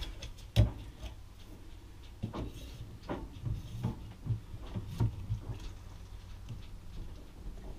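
Handling noises of a clear braided vinyl hose being fed into a plastic gallon jug: a sharp knock about half a second in, then a scatter of soft knocks and rubbing between about two and five seconds.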